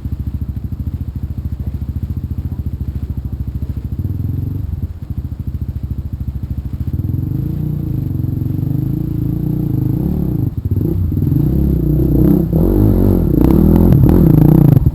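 Trail motorcycle engine idling with an even, rapid pulse, then revving up and down from about seven seconds in, getting louder near the end.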